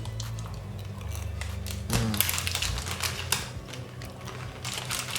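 Close-up chewing of a protein bar with a crunchy chocolate coating: irregular crisp crunching clicks, with a brief hummed 'mm' about two seconds in.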